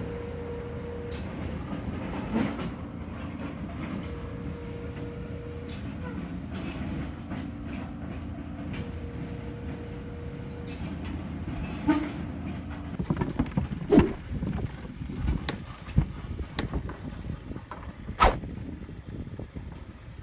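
Piling machine running with a steady hum, and a steady tone sounding three times for about two seconds each. From about two-thirds of the way in, irregular sharp knocks and clanks take over.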